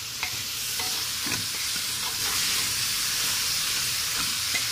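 Chopped vegetables and tomato frying in oil and spices in a pressure cooker, a steady sizzle. A metal ladle scrapes and knocks against the pot a few times as they are stirred.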